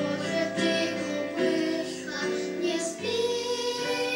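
A child singing a song with musical accompaniment, holding notes that change every half second or so.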